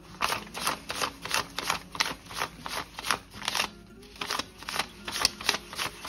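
Paper US dollar bills being counted by hand, each note flicked off the stack with a crisp snap, about three a second, with a short pause a little before four seconds in.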